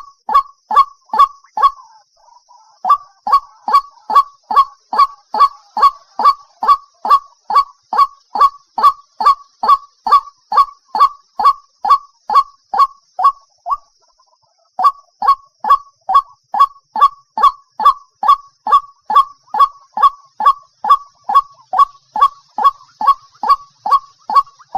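White-breasted waterhen (dahuk) call: a loud, fast run of short notes, each sliding downward, about two a second. The run breaks off briefly about two seconds in and again around fourteen seconds.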